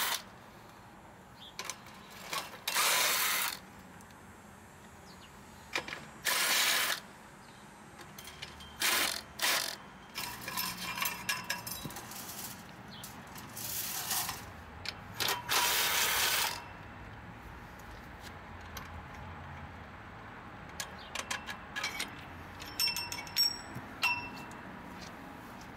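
Cordless impact driver with a socket running nuts off the clamp-band bolts of a chain-link fence post, in about six short bursts of roughly a second each. Several light metal clinks follow near the end as loosened hardware is handled.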